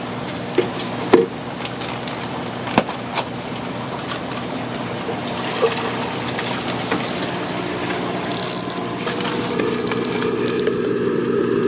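Steady hum of aquarium equipment: pumps and air lines. A few sharp crinkles of a plastic fish bag come in the first three seconds, then water is poured from the bag into a plastic cup about halfway through.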